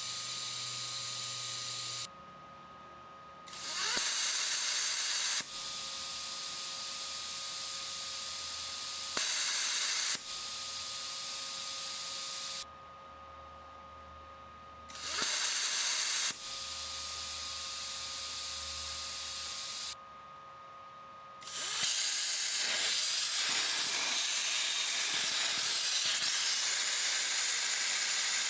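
Cut50 pilot-arc plasma cutter torch hissing in three short loud bursts, each followed by a few seconds of quieter air flow with a faint steady whine and a brief pause. About 21 seconds in, the arc starts and runs on continuously with a loud hiss as it cuts steel sheet, without sputtering, even with the spark gap set wide.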